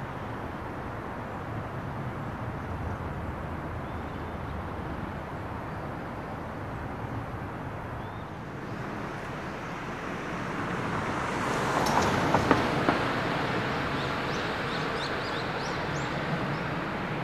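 Outdoor city ambience: a steady hum of distant traffic that swells about two-thirds of the way through, with a few sharp clicks at its loudest, and short bird chirps near the end.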